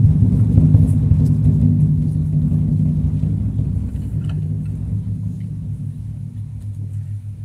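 Large barrel-shaped taiko drums played in a fast roll of strokes, a deep rumble that grows steadily quieter over several seconds.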